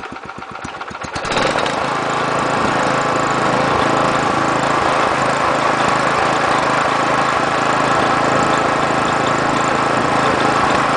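Wisconsin Robin engine, running on a replacement carburetor, idling very slowly with separate firing pulses, then about a second in speeding up and running steadily at a higher speed.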